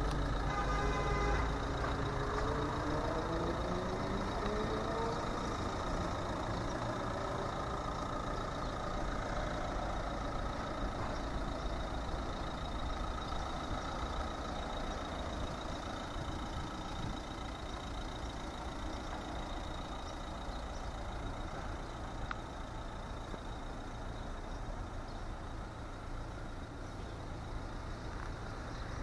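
Steady background noise of motor traffic. In the first few seconds one vehicle's engine rises in pitch as it speeds up.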